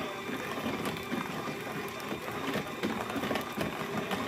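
KitchenAid electric hand mixer running steadily with a high motor whine. Its beaters tick and rattle irregularly against a plastic bowl as they beat an egg into butter-and-sugar brownie batter.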